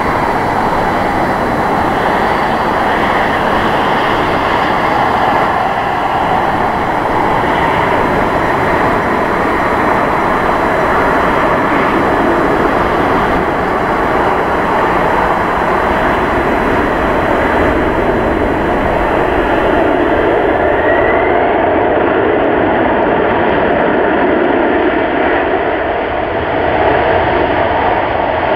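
Boeing 747-400 freighter's four jet engines during landing and rollout: a loud, steady jet rumble.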